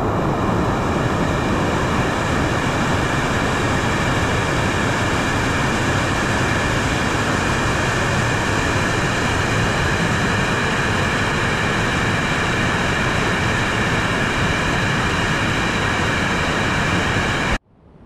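Waterfall rushing, a loud steady wash of white water, cutting off suddenly near the end.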